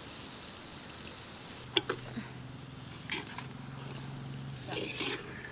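Steel ladle stirring mutton pieces in a clay pot, faint: a few light clicks of the ladle against the pot, then a short scrape near the end, over a faint steady low hum.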